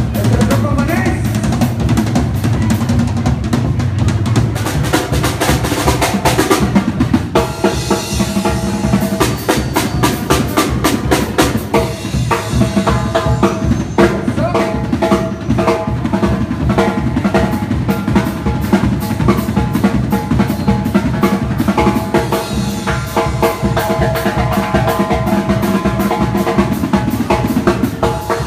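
A live tamborazo band playing a cumbia: tuba and trombone over a steady beat of drums.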